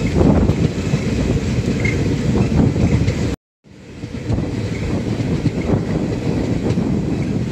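Tirukkural Express passenger train running, heard from aboard a coach: steady wheel-on-rail noise with frequent small knocks. It drops out for a moment a little over three seconds in.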